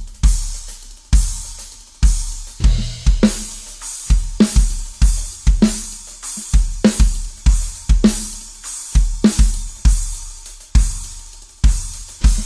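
Acoustic drum kit being played in a groove: bass drum thuds and snare hits under a wash of cymbals and hi-hat.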